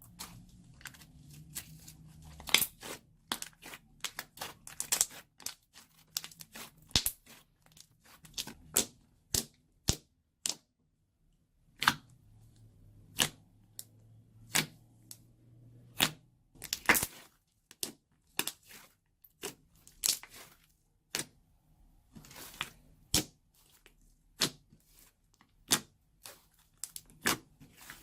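Slime being squeezed and pressed by hand, giving sharp, irregular pops and crackles as air pockets burst. The pops come singly or in quick clusters, with a short lull near the middle.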